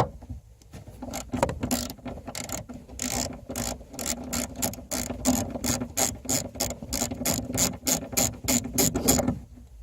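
Ratcheting driver with a T20 Torx bit clicking steadily, about four clicks a second, as a speaker-mounting screw is backed out.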